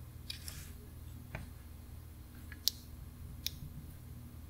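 A few short, sharp metallic clicks of a watchmaker's screwdriver on a small wristwatch movement as the dial screws are loosened and the dial is freed, over a faint steady hum of room tone.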